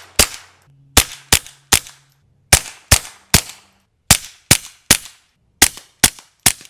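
Suppressed .22 rimfire gunshots, recorded close to the muzzle: strings of three quick shots about 0.4 s apart, with short pauses between strings as a different suppressor is heard in each string. Each shot is a sharp crack that dies away quickly.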